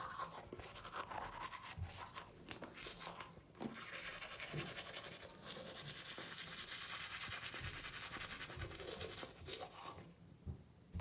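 A toothbrush scrubbing teeth, a rapid back-and-forth bristly scratching with brief pauses, dying away near the end.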